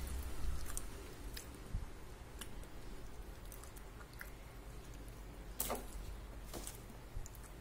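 Hands handling a KFC crispy fried chicken thigh burger: the sesame bun top is lifted and pressed back down onto the crumbed fillet, giving soft squishes and scattered light crackles and clicks, the sharpest a little before the end.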